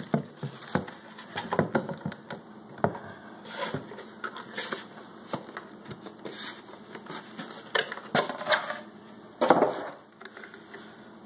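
Handling noise from a Humminbird fish finder and its snap-on plastic sun cover: scattered hard plastic clicks and knocks as it is lifted, turned over, uncovered and set on a wooden counter. A louder burst of rustling and scraping comes near the end.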